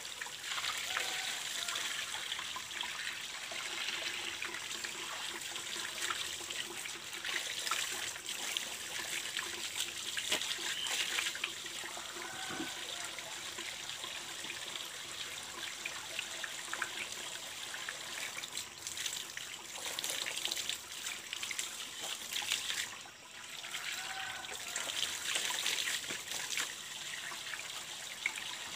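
Water trickling steadily from the open end of a PVC pipe, with irregular splashing as cloth baby diapers are hand-rinsed under it and sloshed in a bucket.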